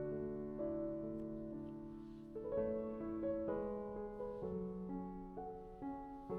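Soft background piano music, a slow melody over held chords.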